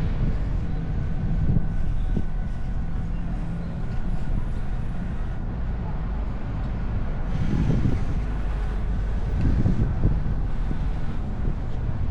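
Car driving along a winding road: a steady engine hum with road and tyre noise. Wind buffets the microphone, with two stronger gusts in the second half.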